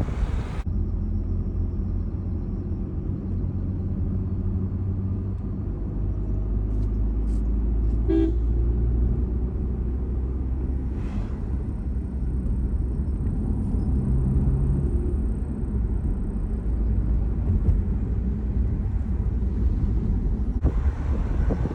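Steady low rumble of a car on the move, engine and road noise, with a short horn toot about eight seconds in.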